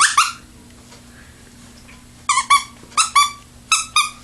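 Newly fitted replacement squeaker inside a repaired plush dog toy, squeezed to test it. One short squeak right at the start, then three quick double squeaks, squeeze and release, from about two seconds in.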